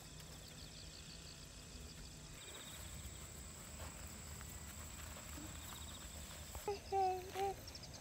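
Insects singing in grass: a fast pulsing high chirp at first, then a steady, very high buzz from about two and a half seconds in. Near the end a brief voice is the loudest sound.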